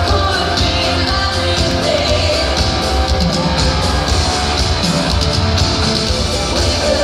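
Live pop concert music: a singer over a band with a heavy, pulsing bass, played loud through an arena sound system and recorded from the audience.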